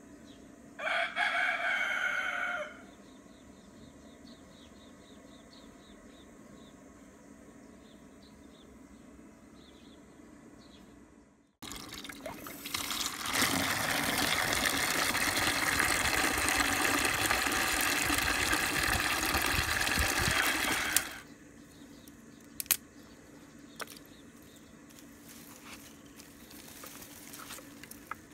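A rooster crows once, for about two seconds, near the start. Later, water gushes from a plastic pipe into a plastic bucket for about nine seconds, filling it, then stops suddenly.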